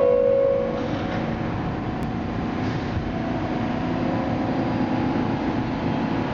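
An NYC subway train horn ends on a short held low note, the loudest sound here. Then comes the steady rumble of an Alstom R160A-2 subway train approaching through the tunnel, growing gradually louder.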